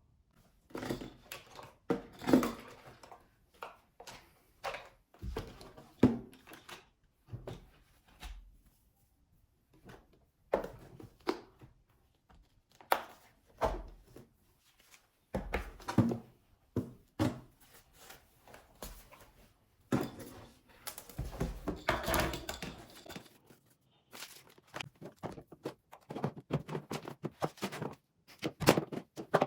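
Household objects being handled and set down in a small room: scattered knocks and thunks with bursts of rustling, denser near the end.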